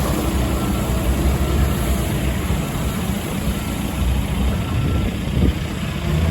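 Caterpillar skid steer's diesel engine running steadily, with a brief knock about five and a half seconds in.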